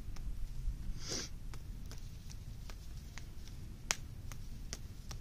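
Hand-kneaded ball of wet clay being patted and squeezed between the palms to press out air bubbles and make it denser, giving faint scattered clicks and slaps, one sharper near the end. A short sniff about a second in.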